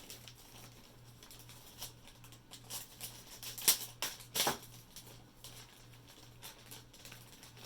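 Faint rustling of packaging as items are handled, with two sharp clicks near the middle, the first the loudest.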